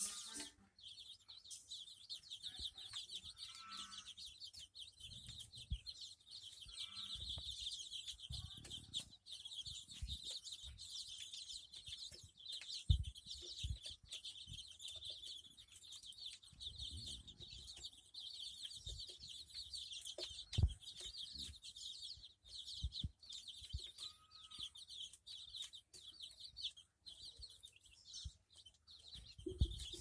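A flock of five-day-old desi chicks peeping continuously and densely, with occasional low clucks from the mother hen. A couple of dull thumps come about halfway through.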